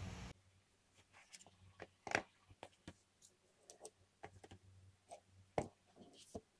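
Hands handling an Apple AirPods (3rd generation) paperboard box: scattered light clicks, taps and scuffs of fingers and the lid against the box. The sharpest taps come about two seconds in and again about five and a half seconds in.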